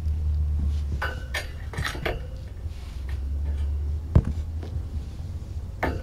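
Several light clinks and knocks of hard objects, with one sharper, louder knock about four seconds in and another near the end, over a steady low hum.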